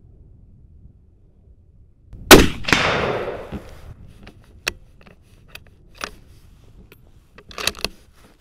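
An L96A1 bolt-action sniper rifle in 7.62 mm fires a single shot about two seconds in, the report echoing for over a second. A few sharp metallic clicks follow, spaced over the next few seconds, as the bolt is worked.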